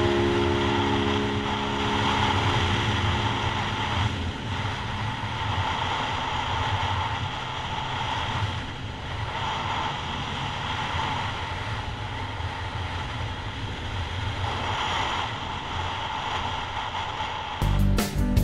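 Wind rushing over the microphone of a Yamaha MT-03 motorcycle riding along at road speed, with its parallel-twin engine running under the wind noise. About a second before the end, strummed guitar music cuts in abruptly.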